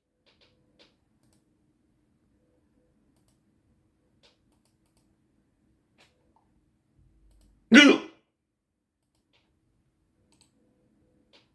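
A single loud hiccup from a person about eight seconds in, short and voiced, with faint small clicks scattered around it.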